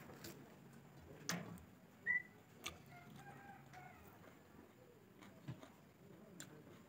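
Quiet eating sounds: chewing, lip smacks and fingers working rice on a metal plate, heard as a few small scattered clicks. A single short high bird chirp about two seconds in is the loudest sound, with faint bird calls just after it.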